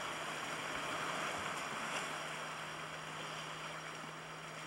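Steady outdoor wind and sea noise over open water, with a low, even hum running under it.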